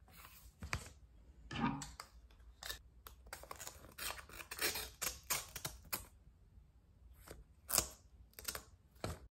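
Scissors snipping through a small sealed paper packet to open it, in a run of many short cuts with the packet crinkling between them.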